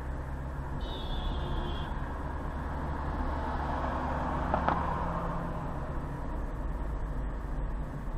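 Steady road and engine rumble of a car driving along a city street, heard from inside the car. There is a brief high tone about a second in and a sharp click just under five seconds in.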